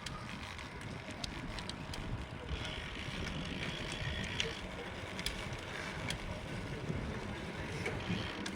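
Steady outdoor background noise with many scattered light clicks and ticks.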